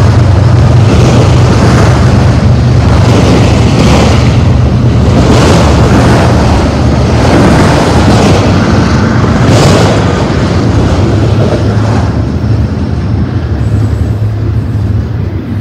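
A freight train of autorack cars rolling past close by: a loud, steady low rumble of steel wheels on rail, with rhythmic surges about once a second. It grows quieter in the last few seconds as the cars move away.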